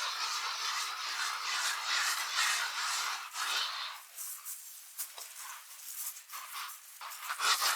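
Carpet being scrubbed in repeated strokes, a dry scratchy rubbing. The strokes grow softer for a few seconds in the middle and pick up again near the end.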